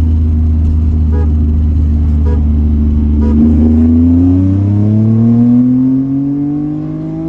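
Car engine heard from inside the cabin, running at a steady pace and then accelerating, its pitch climbing steadily through the last three seconds. Three faint ticks about a second apart sound over the engine early on.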